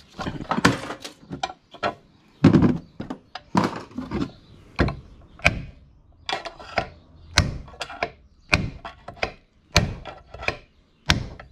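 Repeated hammer blows on a metal punch, about one to two a second and unevenly spaced, knocking a part out of a sewing machine's aluminium casting.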